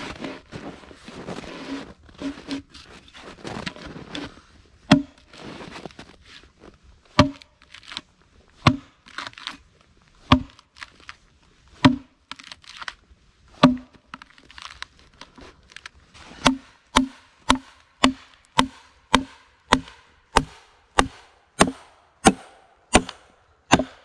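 An axe striking into a log again and again to split it along an existing crack, making boards. Handling rustle first, then single blows every second and a half or so, turning into a quicker run of about two blows a second near the end.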